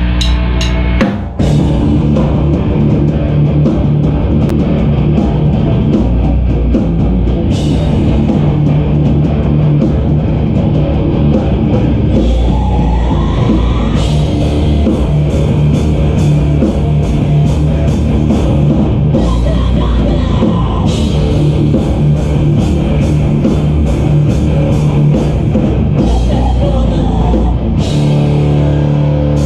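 Live rock band playing loud, with drum kit and guitar. The band breaks off for an instant about a second in, then comes straight back in.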